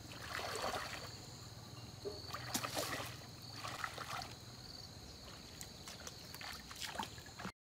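Faint water splashing and sloshing in irregular strokes as a person wades through a shallow pond, with a thin steady high tone in the background.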